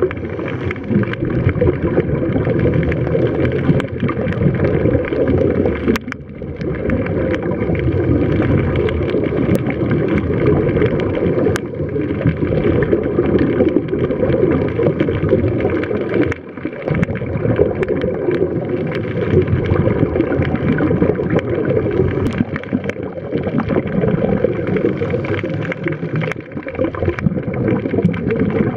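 Muffled, steady underwater rumble with the gurgling of scuba divers' exhaled bubbles and scattered small clicks.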